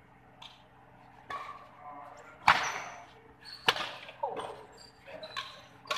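Badminton rackets hitting a shuttlecock back and forth in a rally: about six sharp cracks, roughly one a second, the hardest about halfway through, with players' voices in between. The hits echo in a large hall.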